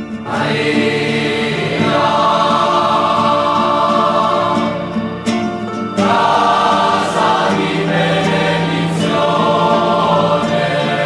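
Choir singing a Christian hymn in held chords, coming in at the start after a guitar passage. It dips briefly about five seconds in, then the next phrase comes in strongly.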